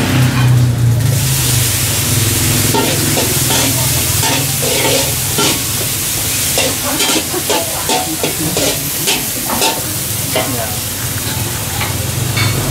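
Chili paste sizzling as it fries in a steel wok, with a metal spatula scraping and clinking against the wok in many quick strokes through the middle seconds.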